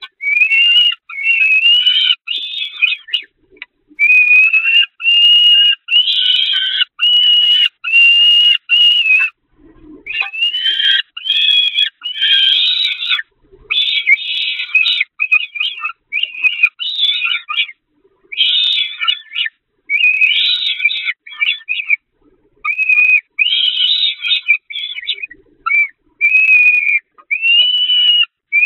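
Peregrine falcon chick begging: a long run of loud, high, whining calls, each about half a second to a second long, with short breaks between.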